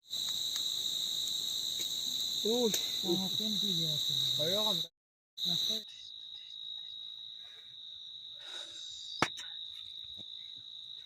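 Night insects such as crickets chirring in one steady high-pitched trill, louder in the first half and quieter after a cut about six seconds in. A person's voice sounds briefly in the middle, and a single sharp click comes about nine seconds in.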